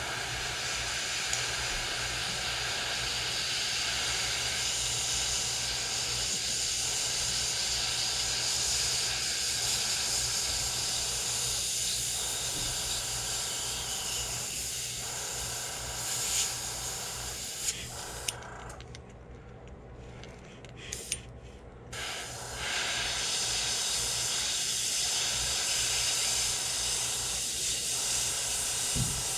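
Airbrush blowing a steady hiss of compressed air while it is being cleaned out after trigger trouble. The spray stops for a few seconds about eighteen seconds in, broken by a few short bursts, then comes back on.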